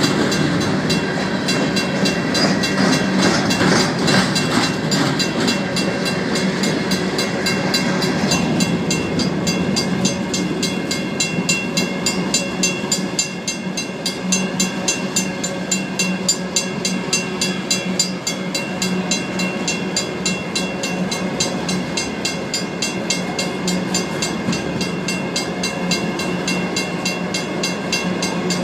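Train of empty rock hoppers and gondolas rolling past, with a steady rumble of wheels and clacking cars. Over it a grade-crossing mechanical bell rings rapidly and evenly.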